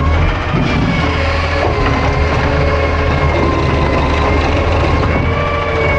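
Refuse truck's diesel engine running with a steady hydraulic whine, several tones that drift a little in pitch, as the truck's arm lifts a cart.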